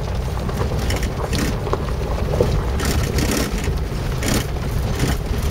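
Interior sound of a vehicle creeping down a rough gravel track: a steady low engine and road rumble, broken by irregular knocks and rattles as it goes over the bumpy surface.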